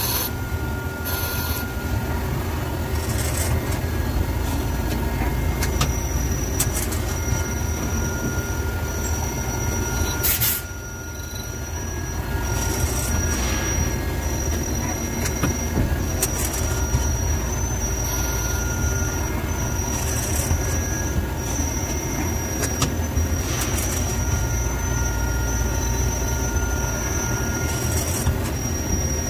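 CNC lathe running and cutting a cast gunmetal (bronze) workpiece: a steady machine noise with a high, squeal-like whine that comes and goes in short repeated stretches. The level drops briefly about ten seconds in.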